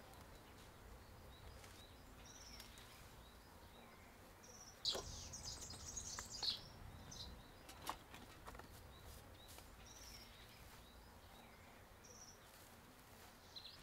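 Faint garden ambience with small birds chirping now and then. A few soft rustles and light taps come in the middle.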